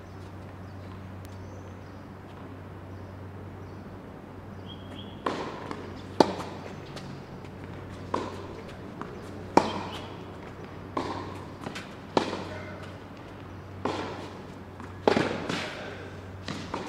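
Tennis rally on an indoor hard court: the ball is struck by strings and bounces, giving sharp echoing pops about once a second from about five seconds in. A steady low hum runs underneath throughout.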